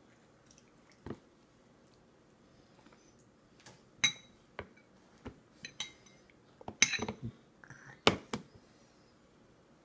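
Tableware clatter: a metal spoon and a plastic suction bowl clinking and knocking on a high-chair tray. There are a few sharp taps early on and a quicker run of knocks from about four seconds in.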